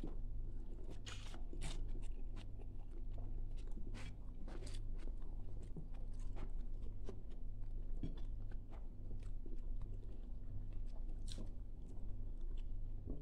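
A person chewing and crunching mouthfuls of food with leafy greens, eaten with the fingers, with many small irregular clicks.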